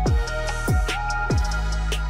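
Electronic background music with a steady beat: a deep kick drum about every 0.6 seconds under held synth notes.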